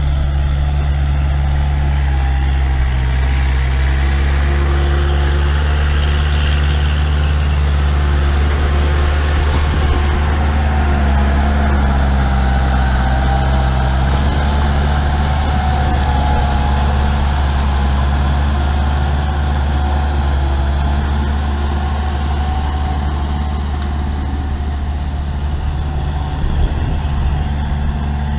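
Kubota tractor's diesel engine running steadily at a constant low speed, its deep engine note even throughout.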